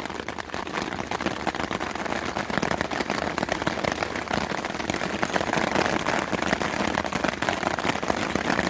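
Steady rain falling, with many close drops hitting a surface as a dense crackle.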